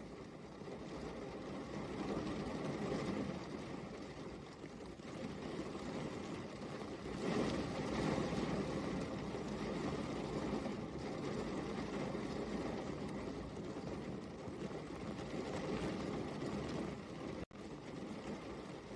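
Steady rain: an even rushing noise, strongest in its lower range, that swells and eases, cutting out for an instant near the end.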